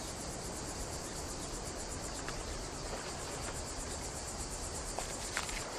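Chorus of insects chirping, a steady high-pitched trill with a fast, even pulse.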